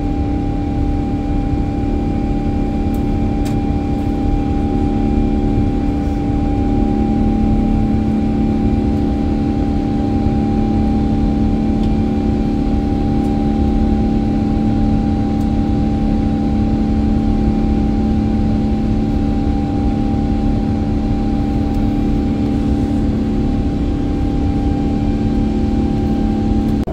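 Airliner cabin noise in flight: a steady jet-engine drone and rushing air with a constant low hum, heard from inside the cabin at a window seat.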